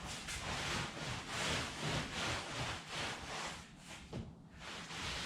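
Cloth rag wiping wet stain off a Formica laminate bench top in repeated back-and-forth strokes, about two a second, easing off briefly near the end.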